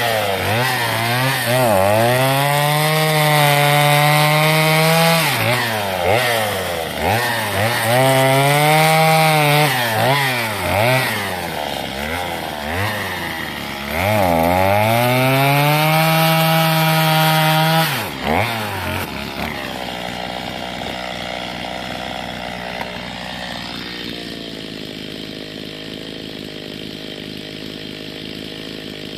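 Gas chainsaw cutting through a log: the engine revs up to full throttle and holds there through three long cuts, dropping back briefly between them. About 19 seconds in it settles to a steady idle.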